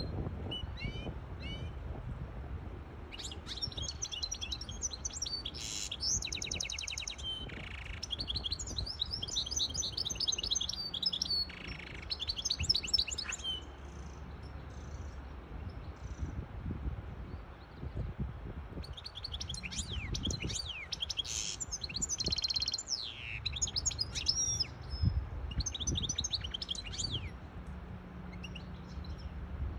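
Caged goldfinch hybrid singing: a few short calls, then two long bouts of fast twittering song with trills and buzzy notes, a pause of several seconds between them.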